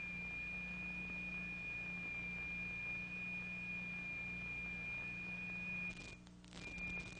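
A steady high-pitched sine-like tone over a low electrical hum. Near the end the sound drops out briefly, with a few clicks, and then returns.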